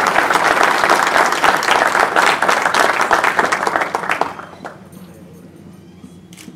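Audience applauding with many hands clapping, which dies away about four seconds in.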